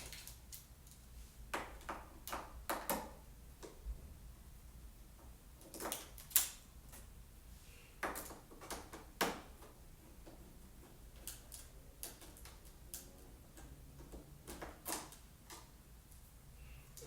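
Irregular light clicks and taps, with a scrape or two, from small tools and iMac parts being handled during disassembly.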